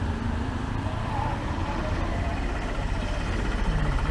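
Auto-rickshaw engine running close by, over a steady low street rumble; its steady engine note grows stronger near the end as it draws alongside.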